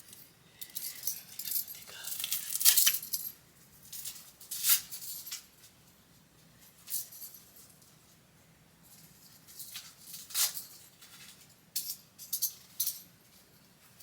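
Metal handcuffs jangling and clinking as they are handled, in short irregular bursts with a louder clatter about three seconds in and again near five seconds.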